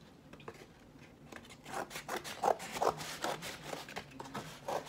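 Scissors cutting through a cardboard egg carton to take off its lid: a run of short, irregular, crisp snips and crunches that starts about a second and a half in.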